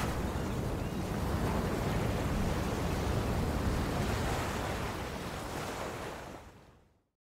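A steady rushing noise, even and without tones, fading out to silence about a second before the end.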